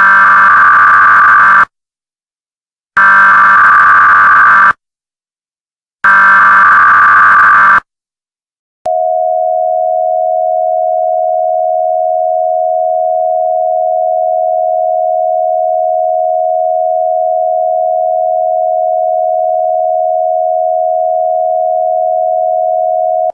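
Emergency Alert System SAME header: three loud bursts of warbling data tones about a second apart, then a long steady attention tone starting about nine seconds in.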